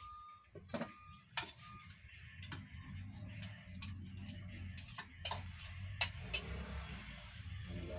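Oil popping in a lidded frying pan on a gas burner: irregular sharp pops and ticks over a steady low hum. There are a few short faint beeps in the first two seconds.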